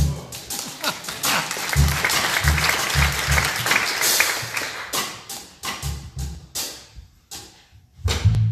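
Live jazz combo playing, with separate deep electric bass guitar notes over light drum strokes; the sound thins almost to quiet briefly near the end, then the band comes back in fuller.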